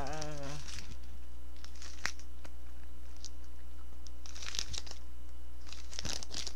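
Plastic film casing on a stick sausage crinkling and crackling in short bursts, about three times, as its clipped end is bitten and pulled at with the teeth without tearing open. A short voiced grunt at the very start, over a steady low electrical hum.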